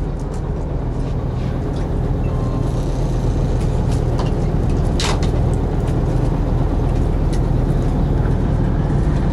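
Charter boat's engine idling with a steady low rumble, and one sharp click about five seconds in.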